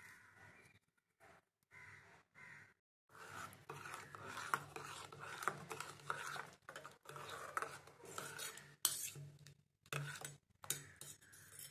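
Metal utensils clinking and scraping against a cooking pot, like a spoon stirring, with sharp clinks. The sound comes in short stretches that start and stop abruptly.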